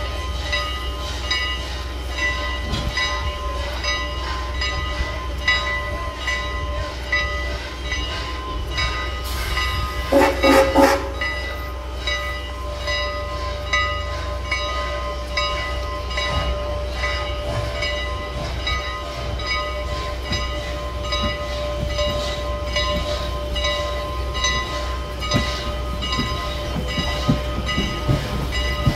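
Steam locomotive No. 89, a 2-6-0, running slowly tender-first with a steady rumble and a faint regular beat. It sounds one short whistle blast about ten seconds in.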